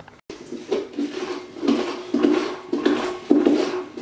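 The inside of a pumpkin being scraped and scooped out by hand, in rough strokes about twice a second, some with a faint squeak.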